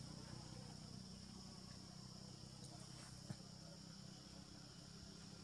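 Faint, steady insect chorus with a low background hum, and one brief click about three seconds in.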